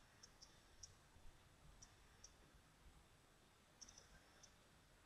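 Near silence: quiet room tone with about eight faint, short, high clicks scattered irregularly through it.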